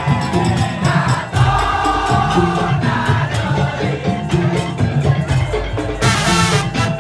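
Madurese tong-tong music ensemble playing, with a driving beat in the low drums under a held melody line. A bright crash-like burst comes about six seconds in.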